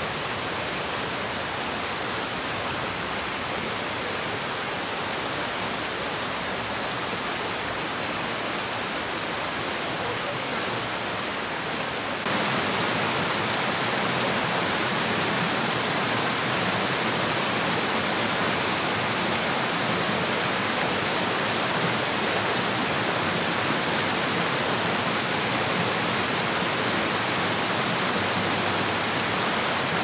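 Mountain stream rushing and splashing over rocks, a steady wash of water noise. About twelve seconds in it cuts to a louder, fuller rush of white water.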